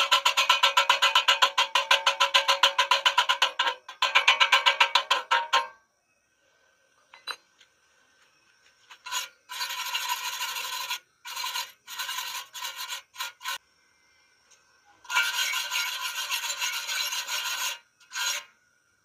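A wire brush scrubbed fast over a weld seam on galvanized steel square pipe, about five strokes a second, stopping about six seconds in. Then a stick-welding arc crackles on the vertical joint in several runs, breaking off and restarting, the longest near the end.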